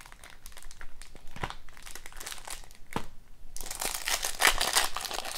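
Foil wrapper of a hockey card pack crinkling as it is handled and torn open, with scattered crackles at first that turn denser and louder past the middle.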